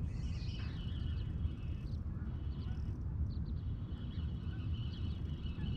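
Birds calling faintly in the distance over a steady low rumble.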